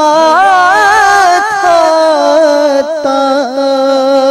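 A male naat reciter singing a long drawn-out melisma with no words. His pitch climbs in ornamented waves in the first second or so, then settles on steady held notes with a brief dip near the end.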